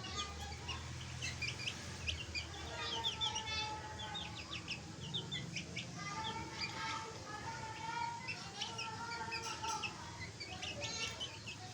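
Chicks peeping: many short, high cheeps in quick succession, with a lower, longer drawn-out call running from about six to nine seconds in.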